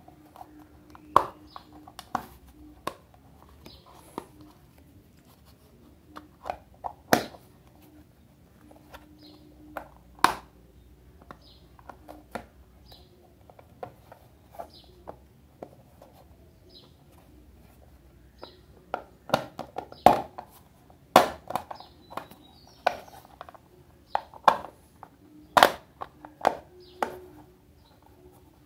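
Scattered sharp clicks and taps from a hard glasses case being handled in the hands. The clicks come more often in the last third.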